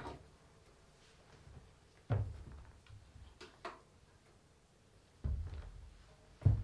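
A few dull wooden thuds, irregularly spaced about two to three seconds apart, with two quick sharp clicks between them.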